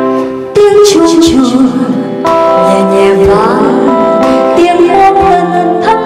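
Music: a woman singing into a microphone over live band accompaniment, holding long, bending notes.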